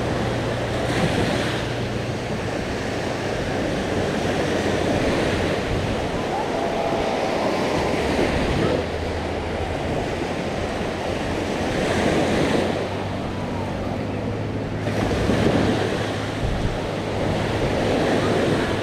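Sea surf washing onto a sandy beach, swelling and fading every few seconds, with wind rumbling on the microphone.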